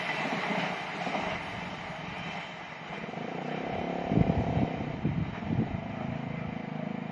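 Freight train's rumble fading as it moves off past the level crossing, with several low thumps about four to six seconds in.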